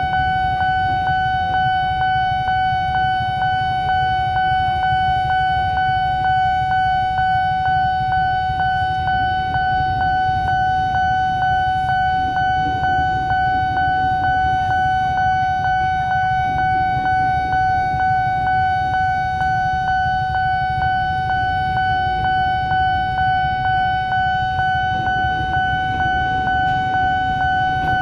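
Nippon Signal electronic level-crossing bell sounding its warning, a steady ringing tone repeating in a fast, even rhythm, which means the crossing is closed for a train. Beneath it is the low rumble of a KRL commuter electric train passing over the crossing.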